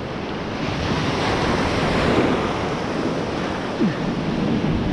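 Surf breaking and washing around a wader in 2 to 3 foot swells, with wind buffeting the microphone. The rushing wash swells louder about two seconds in.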